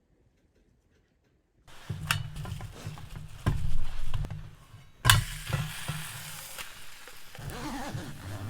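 Food frying in a pan, with a steady sizzle and utensils knocking against the pan several times. The sizzle starts abruptly after a second or so of near silence.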